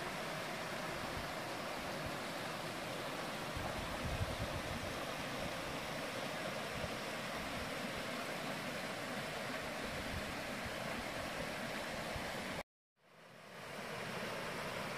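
Small forest brook rushing over rocks and little cascades: a steady, even rushing of water. Near the end the sound cuts out completely for a moment and then fades back in.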